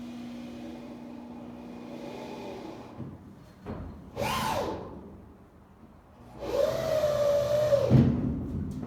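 A power tool's motor running in short bursts: a steady hum at first, a brief run that winds down about four seconds in, then a louder, higher run that spins down abruptly near the end.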